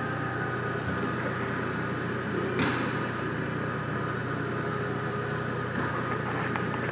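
LPG forklift engine idling steadily with the truck standing still. A brief burst of noise comes about a third of the way in, and a sharp click right at the end.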